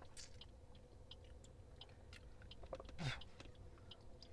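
Quiet chewing and crunching of a dry-fruit biscuit close to the microphone, with faint small clicks, and one brief louder sound about three seconds in.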